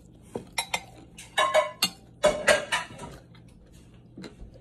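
Close-up eating sounds: fried chicken being bitten and chewed, a quick run of sharp crunches that come loudest in two clusters in the middle.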